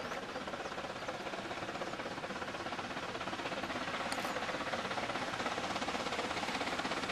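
C2 narrow-gauge steam locomotive working out of sight, a fast, even beat of exhaust that slowly grows louder as it approaches.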